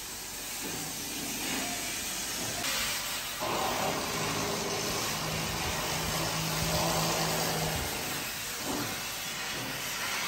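Torch cutting a hole through a steel beam: a steady hiss that grows louder about a third of the way in. A low steady hum runs under it for a few seconds in the middle.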